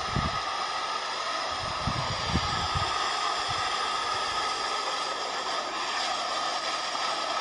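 Steady roar of a fast-flowing muddy flood surge rushing over ground, with a few low thumps in the first three seconds.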